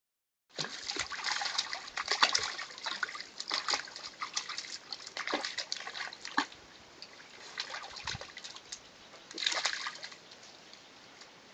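Two Vizsla dogs wading in shallow running water over rock, their paws splashing in quick irregular strokes over the steady trickle of the stream. The splashing is busiest for the first six seconds and comes again in a short burst near the ten-second mark, with only the trickle between.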